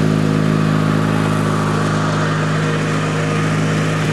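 Riding lawn mower engine running steadily at a constant speed, with no revving.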